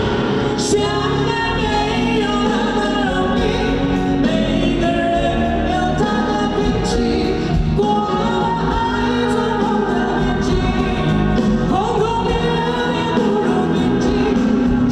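Live pop band playing with vocalists singing over it, steady and loud, with cymbal crashes now and then.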